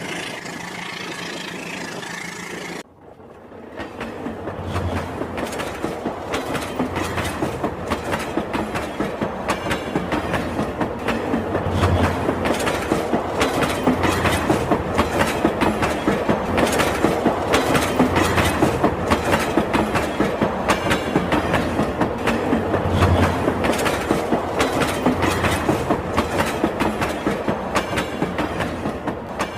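Rail King toy train running along its track with a fast, steady run of clicks, clickety-clack like wheels over rail joints. It starts after a steady sound with a held tone cuts off abruptly about three seconds in.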